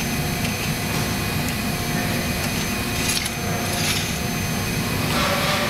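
A car jack being dragged out from under the car, scraping and rubbing a few times, over a steady roar of background noise.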